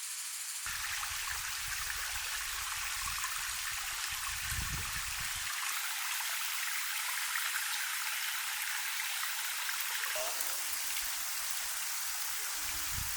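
Mountain stream running steadily, with wind rumbling on the microphone twice.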